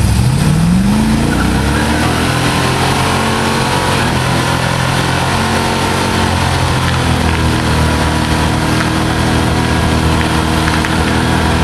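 Lifted four-wheel-drive SUV doing a burnout: the engine revs up over the first second or so, then is held at high revs. Over the engine, the rear tyres spin and smoke against the pavement while the front wheels sit blocked.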